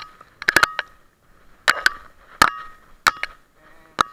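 A series of sharp metallic clinks, each with a brief ring, about eight in all, some coming in quick clusters: hard metal knocking against stones in the ground.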